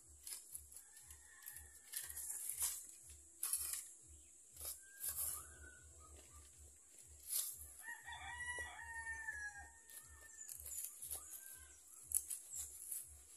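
A rooster crowing once, a drawn-out call about eight seconds in, with short scrapes and knocks of a hand trowel and hands working in soil and leaves before and after it.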